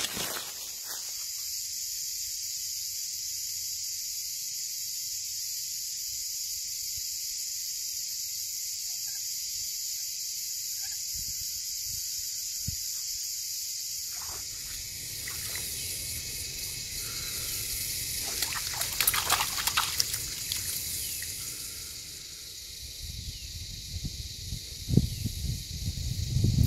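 Steady high-pitched buzzing drone of a cicada chorus. From about halfway, rustling and footsteps on dry leaf litter join in, loudest a few seconds later.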